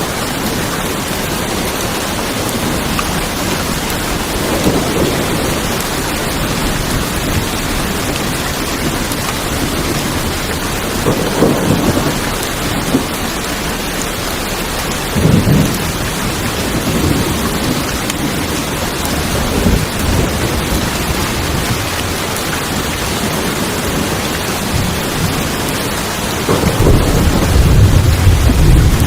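Steady rain hissing on a tin roof, with low rumbles of thunder rising and falling several times and a longer, louder rumble near the end.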